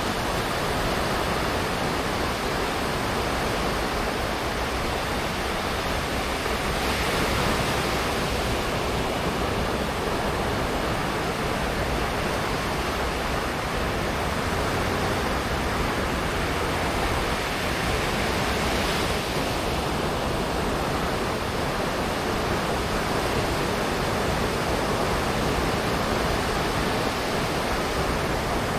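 Ocean waves washing onto a beach: a continuous rush of surf that swells twice, about seven and nineteen seconds in.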